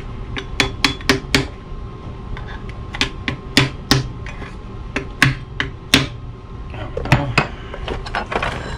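Cobbler's hammer striking the heel of a shoe held on an iron last: about a dozen sharp taps in uneven groups, testing how the heel block is fastened.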